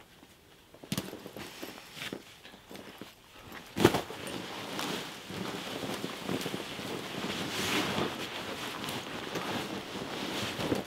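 Rustling and shuffling of a person moving about beside a hooped nylon bivvy on dry leaf litter. Scattered small knocks come first, then a sharp knock about four seconds in, followed by steady rustling of fabric and leaves.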